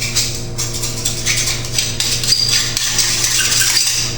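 Metal hand tools and parts clinking and rattling in quick, irregular knocks, over a steady low hum.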